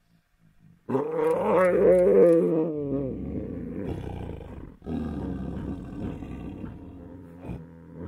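Tigers snarling and growling while mating. A sudden loud call starts about a second in and wavers in pitch for about two seconds, then eases into lower, rougher growling that breaks off briefly near the middle, starts again and fades toward the end.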